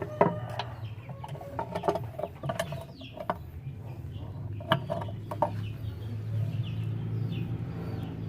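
Chickens clucking in the background, with scattered sharp clicks and knocks from hand work on the engine parts over a steady low hum.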